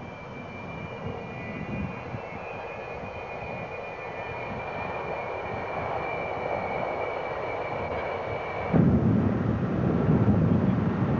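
Jet engines of the Buran atmospheric test vehicle running with a steady high whine, growing gradually louder. About nine seconds in it cuts off abruptly to a louder, low rumbling noise.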